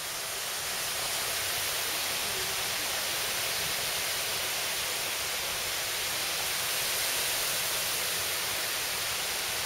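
Steady rush of water spilling over the dam of a full reservoir that is overflowing.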